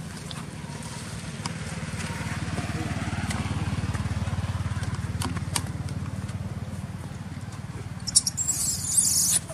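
A motorcycle engine running, growing louder over the first four seconds or so and then fading again as it passes. Near the end comes a loud, high-pitched hiss lasting about a second.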